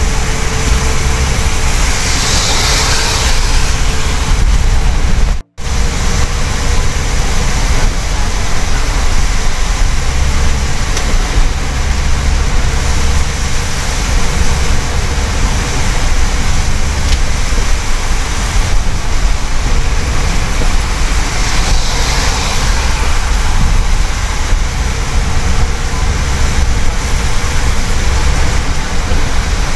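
Steady road noise inside a taxi's cabin on a rain-soaked road: tyres hissing through standing water, rain and spray on the car and a low engine rumble, with two brief louder hisses of spray. The sound cuts out for an instant about five and a half seconds in.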